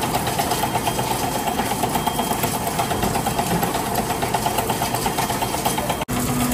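Plastic grinding machine running with a fast, even rattle, while crushed red plastic pours from its chute into a sack.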